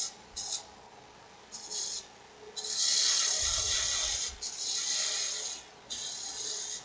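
Detail gouge cutting into dry aspen spinning on a wood lathe, shaping an ogee curve. The cut makes a hissing, shaving sound in four strokes, the longest about three seconds in, with a dull low thump partway through it.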